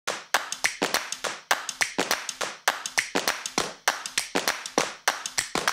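Hand claps and light taps in a quick, steady, repeating rhythm of about five hits a second, with no other instruments: the percussion opening of a background music track.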